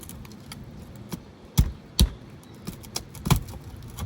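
Flat pry bar working under asphalt roof shingles and their nails: scattered sharp metal clicks and scrapes, with three louder knocks in the middle.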